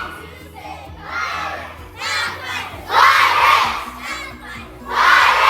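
A crowd of children shouting together in repeated bursts, the loudest two near the middle and at the end, over background music.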